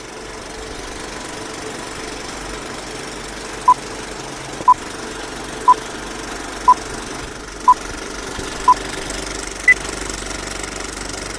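Old-film countdown leader sound effect: a film projector rattling steadily, with a short beep once a second six times from about a third of the way in, then a single higher-pitched beep near the end.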